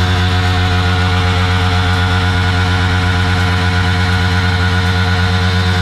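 Yamaha MT-15 V2's 155 cc single-cylinder engine held at steady revs, its rear tyre spinning in a smoky burnout.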